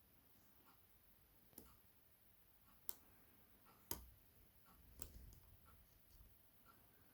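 Faint, sharp clicks of a hook pick and tension wrench working the pins inside a Kasp 19070 six-pin padlock, a few clicks about a second apart.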